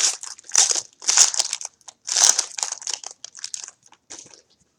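Trading-card pack wrapper crinkling as it is handled and opened, in several loud bursts that thin out and stop near the end.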